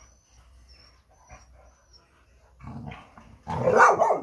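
American Staffordshire Terriers barking and growling, faint at first and then a loud burst of barks near the end.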